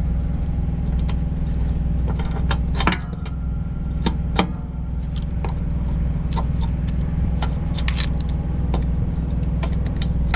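Sharp metallic clinks and taps of a wrench working on the airbag's fittings, scattered irregularly, over a steady low engine drone.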